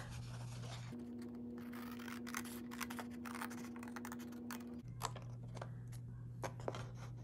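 Scissors cutting through heavy 110-pound cardstock: a quick series of short, crisp snips.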